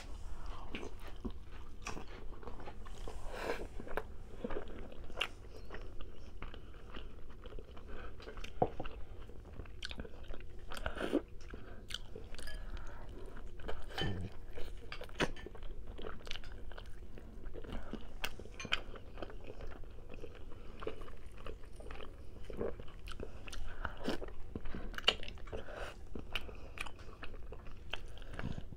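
Chewing and biting into a sauce-dipped rotisserie chicken drumstick, with irregular wet clicks and smacks of the mouth throughout.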